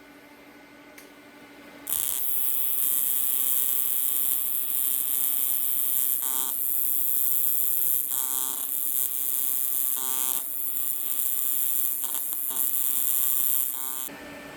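Everlast 325 EXT TIG welder's AC arc on aluminum, a steady buzzing hiss. It strikes abruptly about two seconds in, holds for about twelve seconds while a bead is laid, and cuts off sharply near the end.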